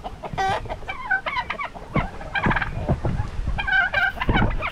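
Domestic turkeys calling, with a gobble about half a second in, a quick run of rapid pulses, followed by more short warbling calls every second or so.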